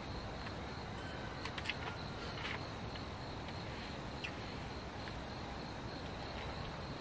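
Steady outdoor background noise with a constant high, thin insect-like drone, and a few faint small clicks and taps.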